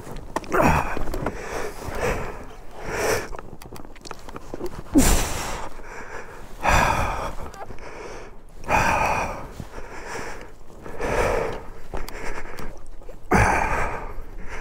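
A man breathing hard close to the microphone: loud, rasping breaths about every two seconds.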